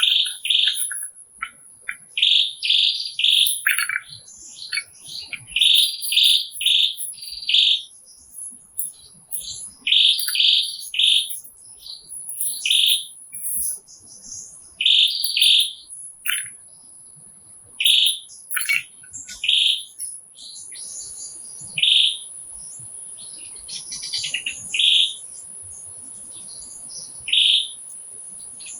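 Birds chirping in quick runs of short, high calls, over a thin steady high-pitched tone. A soft hiss comes in about two-thirds of the way through.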